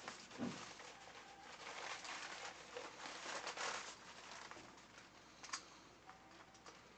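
Faint rustling and crinkling of shiny PVC and sauna-suit fabric as the wearer moves their arms and adjusts the hood, with a soft bump about half a second in.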